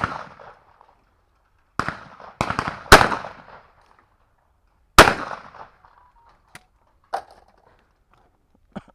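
Shotgun shots at a clay shooting ground: a shot at the start, three in quick succession around two to three seconds in, and another about five seconds in, each with a short echoing tail. A few fainter sharp clicks follow.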